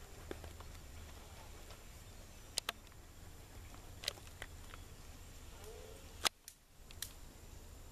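A handful of sharp clicks and taps, a close pair about two and a half seconds in and single ones later, over a low steady hum.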